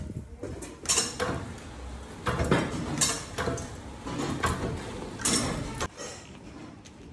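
Clattering knocks from a clay-lamp (diya) press stamping out clay lamps, a hard knock about once a second at an uneven pace, stopping abruptly near the end.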